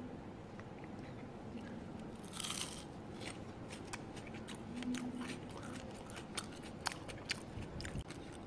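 Crunchy fried bread moong pakoda being bitten and chewed: a short rustle, then scattered sharp crunching crackles.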